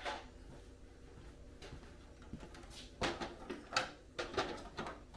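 A soft rustle, then a quick run of irregular small clicks and knocks from about three seconds in: hands fitting and handling the plastic body of a 1/10-scale RC truck.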